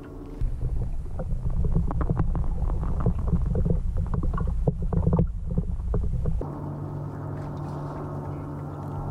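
Water heard through an underwater camera: a dense, muffled rumble with rapid crackles and clicks. About six seconds in it gives way to a steady low hum of even tones.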